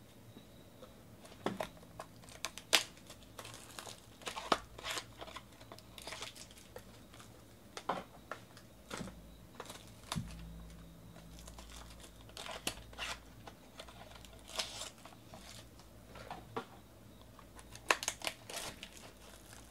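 Foil and plastic wrapping of a trading-card pack crinkling and tearing as it is unwrapped by hand, in scattered crackles with short pauses between.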